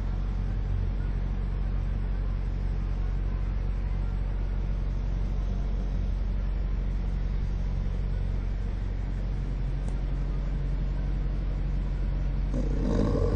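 Snoring sound effect from a carved 'sleeping tree' sculpture, heard as a low, steady rumble with a louder snore-like sound a little before the end.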